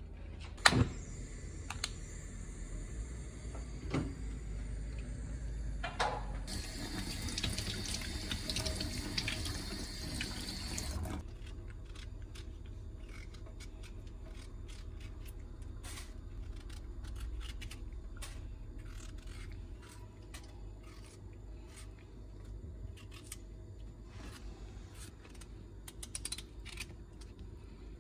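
A few sharp knocks and clunks of kitchenware, then a kitchen tap running into a stainless steel sink for about five seconds before it is turned off. After that come faint scattered ticks and scrapes as boiled potatoes are peeled by hand over the sink.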